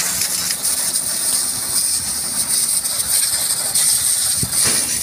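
Pressure washer's water jet blasting against the bus's exposed engine bay and steering box: a steady hiss with irregular spatter as the spray hits the metal.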